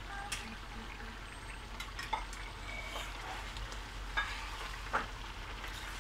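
Chicken karahi sizzling on a high gas flame as it is fried down (bhuna), with a steel spatula stirring it and scraping and clicking against the karahi about six times.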